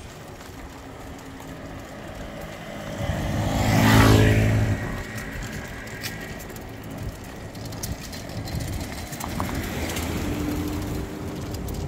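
A car passes close by, building to its loudest about four seconds in and then fading away.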